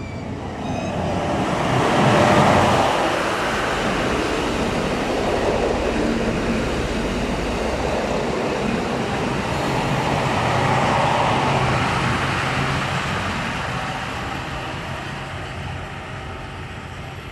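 KiHa 183 series diesel multiple unit running past close by: diesel engines and wheels on the rails. The sound swells as the leading cab draws level about two seconds in, stays loud while the cars go by, then fades near the end.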